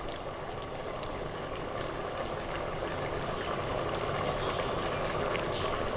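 Thick split-pea mixture simmering in a large pot over a gas flame: a steady bubbling hiss with a few faint pops.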